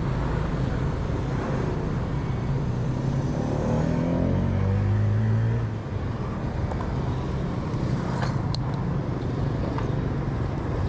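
Street traffic running steadily, with one motor vehicle's engine revving up as it passes, loudest about four to five seconds in and fading at about six seconds.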